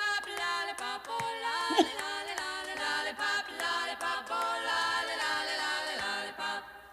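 Music: a quick melody of short notes stepping up and down in pitch.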